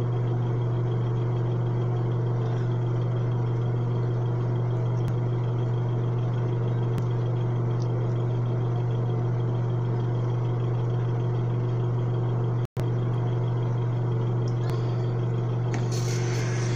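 A steady low hum, with the sound cutting out for a split second about thirteen seconds in and a brighter hiss joining near the end.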